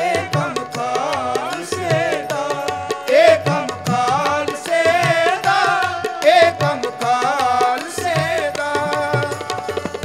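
Kirtan music: harmoniums sounding held chords and a tabla keeping a steady rhythm, with voices singing drawn-out, gliding melodic phrases.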